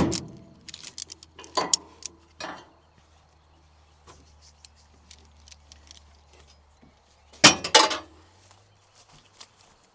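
Fertilizer bags being handled and emptied into a spreader: a sharp click, then scattered knocks and clinks, with a louder rustling scrape about seven and a half seconds in.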